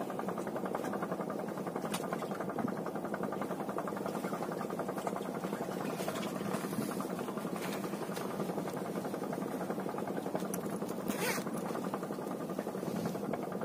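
An engine running steadily with a fast, even pulse, with a few faint clicks over it.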